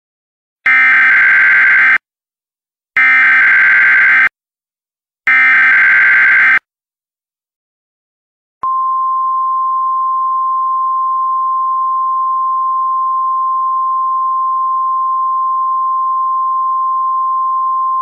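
Emergency Alert System test signal: the SAME digital header sent three times as short bursts of screechy data tones about a second apart, then a steady alert tone that starts a little past the middle and holds to the end.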